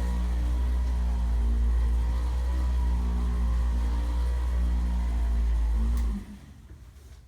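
Electric massager shaped like a floor buffing machine, running on a patient's back with a steady low motor hum, then switched off about six seconds in.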